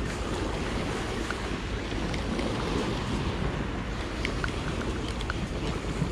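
Sea waves washing and breaking against a rocky shore, a steady surf hiss with wind buffeting the microphone.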